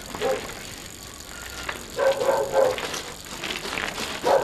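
A dog barking in short barks: one near the start, a few about two seconds in and another near the end, as a bicycle rides past.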